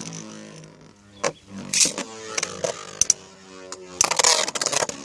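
Two Beyblade spinning tops launched with a ripcord, then spinning and clashing in a plastic stadium: a zip at the start, a few sharp clacks of hits, and a rapid run of clacking collisions near the end.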